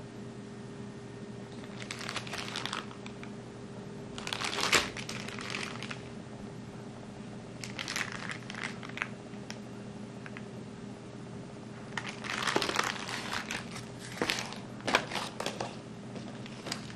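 Clear plastic bag packaging crinkling as it is handled, in several separate bursts of rustling, over a steady low hum.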